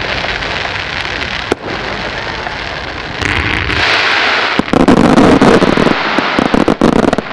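Fireworks display: a steady hissing rush with a single sharp bang about a second and a half in, growing louder after about three seconds. From about halfway, a large burst sets off a loud, dense run of rapid crackling pops.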